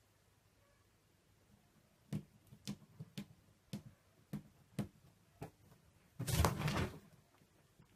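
Cat pawing at the lid of a fabric storage box: a run of light, irregular taps and scrapes, then a louder scuffle about six seconds in.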